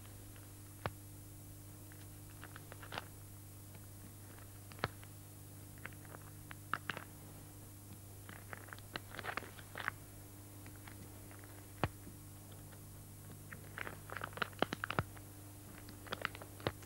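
Round paper stickers being peeled off a backing sheet and pressed onto paper: scattered small clicks, taps and brief rustles, busiest in two spells near the middle and near the end, over a steady low hum.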